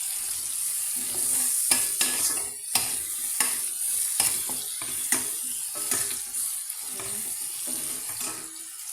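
Onion frying in hot bacon oil in a pan, with a steady high sizzle. Irregular knocks of a utensil stirring against the pan come throughout.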